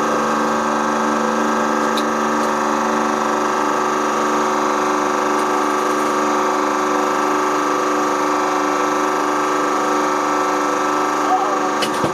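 Hydraulic press running with a steady hum of many fixed tones as its ram squeezes a stack of plastic water bottles. Near the end, a few sharp pops and a clatter as the bottles ping out sideways from under the plate.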